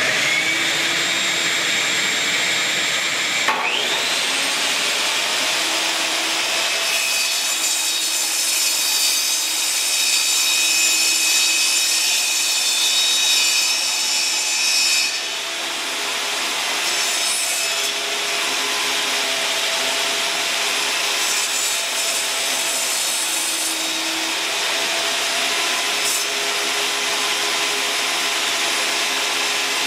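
A table saw and a vacuum cleaner running together, with a second motor spinning up in a rising whine a few seconds in. The saw's single blade then cuts a half-inch-deep dado across a wooden block in repeated passes, the cutting noise swelling and easing.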